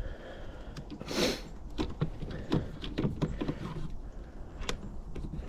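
Scattered small clicks and knocks of hand work on parts and hardware, with one longer scrape or rustle about a second in, over a steady low wind rumble.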